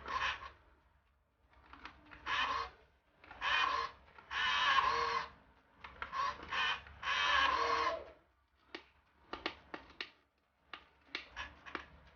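Electric drive motor and gearbox of a Huina 1573 RC dump truck whirring in about six short bursts as it is driven back and forth, followed by a run of sharp clicks in the second half.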